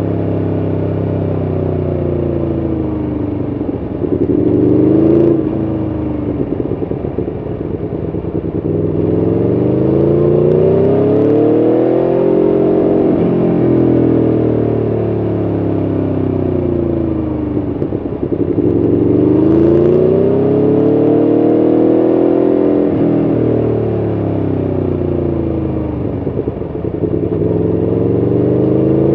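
Aprilia Tuono V4 1100RR's 1077 cc V4 engine heard from on the bike. It rises and falls in pitch several times as the bike accelerates out of bends and slows into the next ones.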